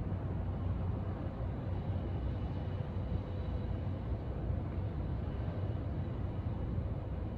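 Steady low outdoor rumble with a faint steady hum running under it.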